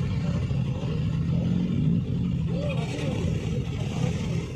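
Motor vehicle engines running with a steady low rumble, with faint voices about halfway through.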